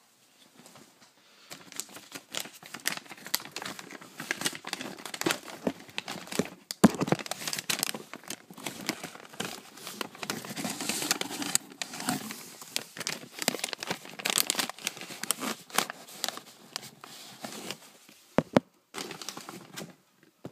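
Plastic packaging being handled, crinkling and rustling with many sharp clicks and knocks. It begins about a second and a half in, with a short break near the end.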